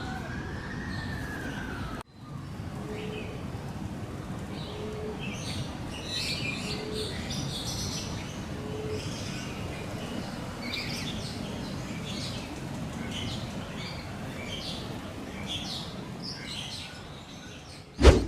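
Birds calling with many short, high chirps over a steady low background hiss, and a short low note four times about two seconds apart. A sudden cut comes about two seconds in, and a loud click near the end.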